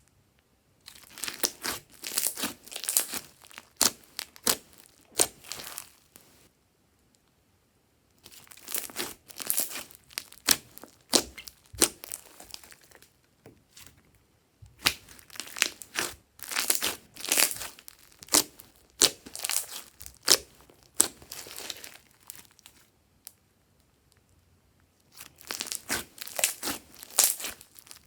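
Glossy slime being mixed and squished, giving dense runs of sticky crackling clicks and pops in four bouts with short pauses between them.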